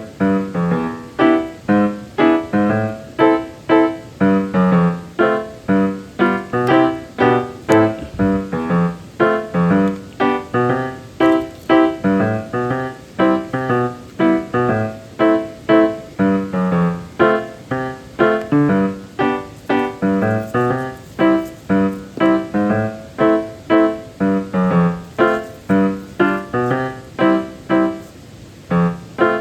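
Background music: a piano piece with evenly struck notes at about two a second.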